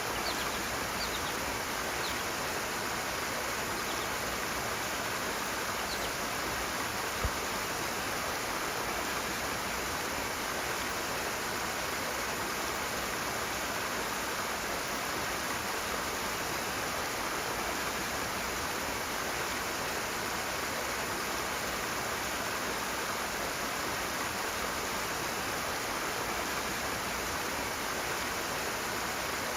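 Rushing water, a steady, even rush with no pauses. There is one brief knock about seven seconds in.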